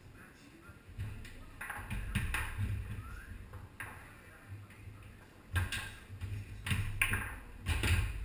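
Foosball play on a Tornado table: irregular flurries of sharp clacks as the ball is struck by the plastic men and knocks off the table, over low thuds from the rods.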